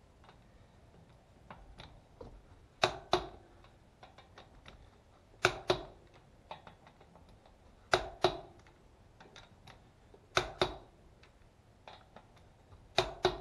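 A wrench tightening the five lug nuts of a wheel in a star pattern. Each nut gives a sharp double click, about every two and a half seconds, with faint ratchet ticks in between.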